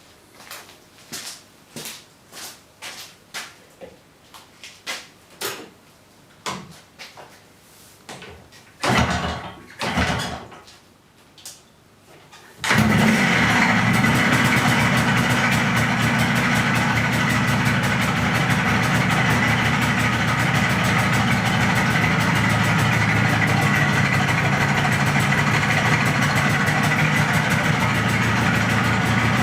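About twelve seconds of scattered clicks and knocks, with two louder thumps near the end of them; then the MZ ES 250/2's single-cylinder two-stroke engine starts suddenly and runs steadily. It sounds a bit like a tractor, the sign of a damaged connecting-rod bearing.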